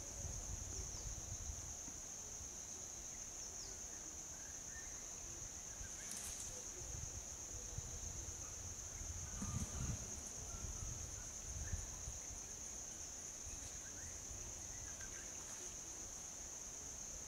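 Steady high-pitched drone of insects, one unbroken tone, over a low rumble that swells briefly about ten seconds in, with a few faint chirps.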